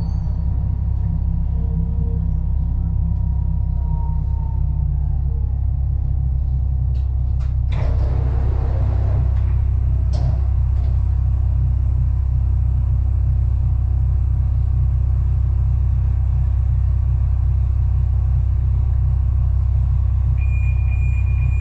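Budapest M4 metro train (Alstom Metropolis) in the tunnel, heard from inside the front of the train: a loud, steady low rumble with a faint falling motor whine in the first few seconds. There is a knock about eight seconds in, and a steady high tone starts near the end.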